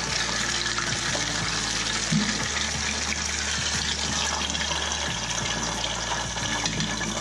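A whole white crappie deep-frying in hot oil in a frying pan: a steady, loud sizzle and crackle as the fish first cooks. A brief knock comes about two seconds in.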